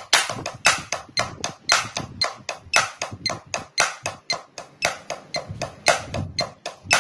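Wooden drumsticks striking a practice pad in even alternating single strokes, about six a second, over a metronome's click about twice a second.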